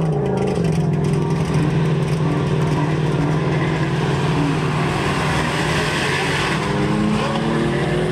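Engine of a DFSK Optimus catering truck modified for drag racing, running at a steady note, then climbing slowly in pitch from about six seconds in as the truck accelerates down the strip.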